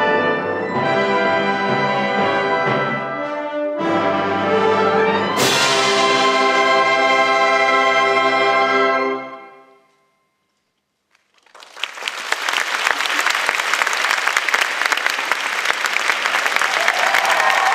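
A wind band plays its closing chords with the brass prominent, marked by a percussion crash about five seconds in. The final chord rings and fades to a second of silence, then the audience breaks into applause.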